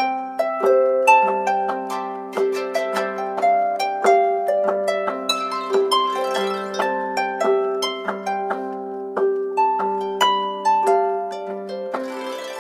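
Samsung Galaxy S6 ringtone: a melodic tune of plucked, harp-like notes over lower held notes, fading out near the end.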